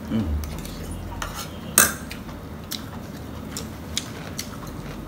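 Metal spoons clinking and scraping against ceramic plates and bowls as people eat: a handful of scattered light clinks, the loudest about two seconds in.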